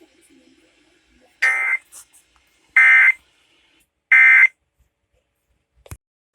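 Emergency Alert System end-of-message signal: three short, identical bursts of buzzy SAME digital data tones, evenly spaced about a second and a half apart, marking the close of the alert. A single click follows near the end.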